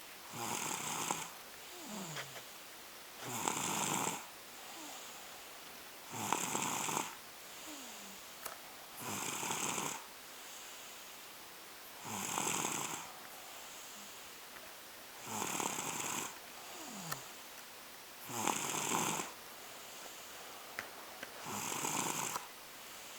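Two-year-old toddler snoring in sleep: a loud snore about every three seconds, with a softer breath between each, some ending in a faint falling whistle.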